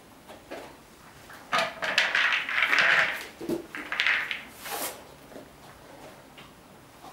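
Horse treat ball, a plastic ball with feed pellets inside, rattling and scraping as a horse pushes and rolls it across the floor mats with its nose; a clattering run for a few seconds in the middle, then a few light taps.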